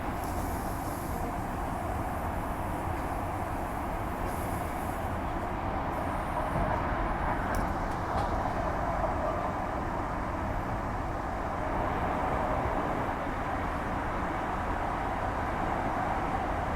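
Steady running noise inside a Walkers Limited A-series electric multiple unit travelling at speed: an even rumble and hiss of the train on the track.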